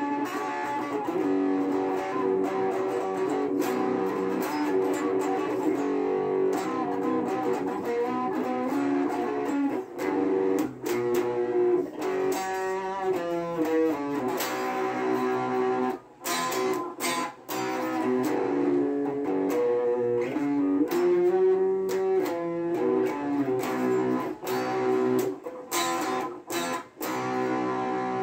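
Stratocaster-style electric guitar played through an amplifier: held notes and chords, with a fast run of notes about halfway through and a few short stops near the end.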